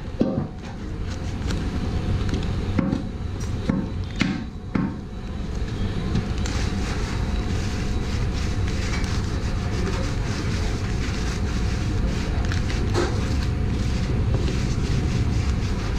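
Plastic packets of cashews being slit with a knife and handled, giving a few short knocks and rustles in the first five seconds, over a steady rushing background noise.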